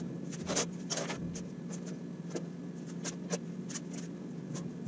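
Light, irregular metallic clicks and taps as a new bandsaw blade is worked over the Laguna 18BX's upper wheel and knocks against the wheel and frame, over a steady low hum.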